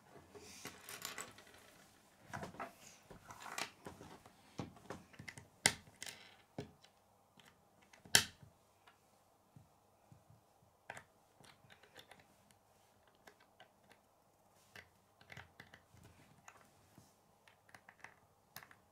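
Plastic K'nex rods and connectors clicking and rattling as they are handled and snapped together, in irregular small clicks with two louder snaps in the first half.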